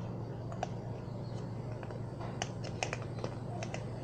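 Sticky slime being worked and poked with a pen, giving scattered small clicks and pops over a steady low hum.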